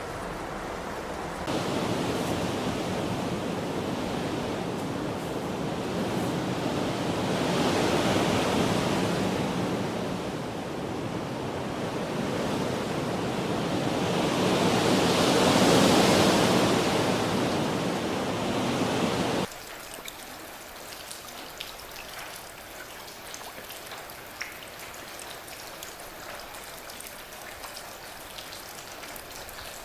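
A rushing weather noise, swelling up and dying back twice, cuts off suddenly about two-thirds of the way through. Lighter rain follows, with individual drops ticking over a soft hiss.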